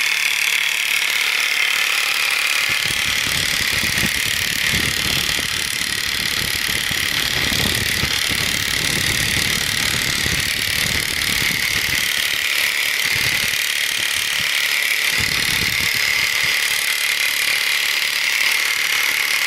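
RTC Hammerhead Super Scraper running with a steady high whine, its blade chattering and scraping against a concrete floor. The scraping turns rougher and heavier from a few seconds in until near the end.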